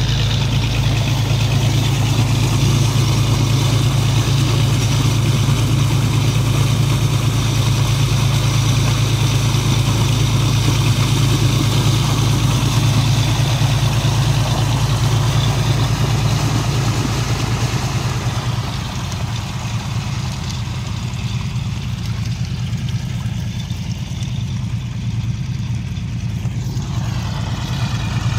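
An engine runs steadily at a constant pitch while thick mud slurry gushes and splatters from the outlet of a suction dredge's discharge hose.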